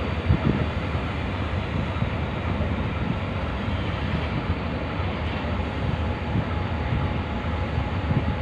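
Steady low rumble of a diesel-electric locomotive idling, mixed with wind buffeting the microphone, with a couple of light knocks about half a second in.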